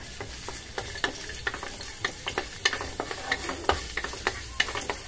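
Chopped garlic sizzling in hot oil in a metal wok, with a steady frying hiss, while a wooden spatula stirs it, scraping and tapping against the pan several times a second.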